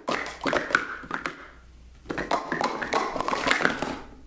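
Plastic sport-stacking cups clattering rapidly as they are stacked up and down at speed in a timed run, ending about a second in with the hands slapping the stop pad of the stacking timer. After a short pause, a second run of quick cup clatter.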